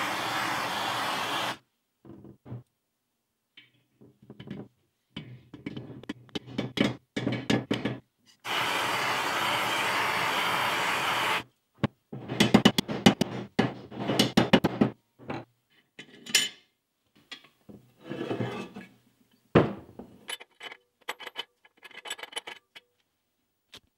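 Gas blowtorch flame hissing steadily while it heats the aluminium gearbox casing around the bearings, once briefly at the start and again for about three seconds about a third of the way in. Between and after come runs of sharp metal knocks and clinks as the gearbox parts are handled and fitted, loudest just after the second burst of flame.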